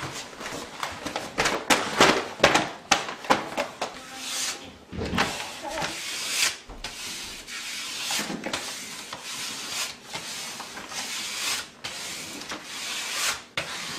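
Paper backing and masking-tape transfer sheet of a large vinyl wall decal crackling and rustling as it is peeled and handled, with hands rubbing over the sheet against the wall. The crackles come irregularly, several a second, with a few longer swishes.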